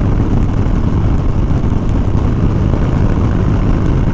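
Harley-Davidson Dyna Low Rider S's Twin Cam 110 V-twin engine running steadily at road speed, mixed with wind rush on the bike-mounted microphone.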